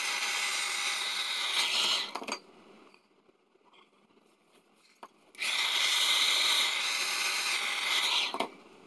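Heat gun blowing hot air with a steady rushing hiss, switched off a little over two seconds in and run again from about five and a half seconds until shortly before the end, warming a plastic tube to loosen it from its fitting.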